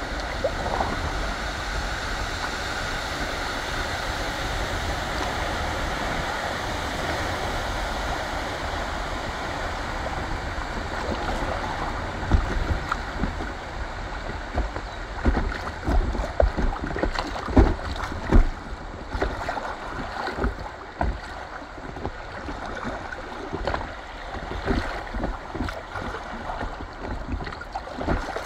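Fast river current rushing around an inflatable kayak, a steady hiss of moving water. From about twelve seconds in, as the kayak enters choppy riffles, the sound turns uneven, with irregular low thumps and buffeting.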